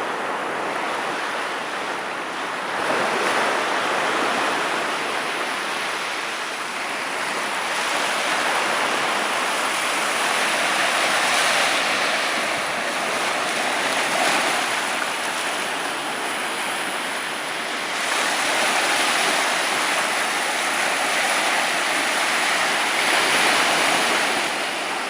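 Ocean surf breaking and washing in, the rush swelling and fading every few seconds.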